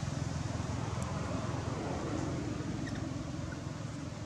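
Low, steady engine hum from a distant motor vehicle, slowly fading, over a general outdoor noise bed.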